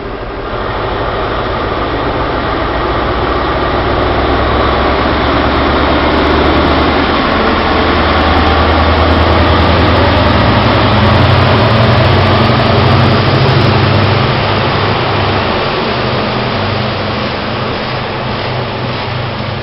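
British Rail Class 43 HST power car diesel engine working under power as an InterCity 125 pulls away, swelling as the power car passes about halfway through and easing as the coaches follow.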